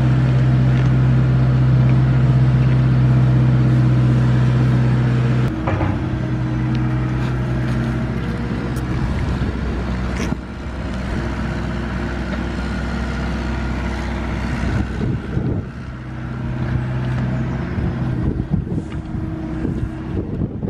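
Engine of a small excavator running with a steady hum, its note shifting about five seconds in and dipping briefly a couple of times later.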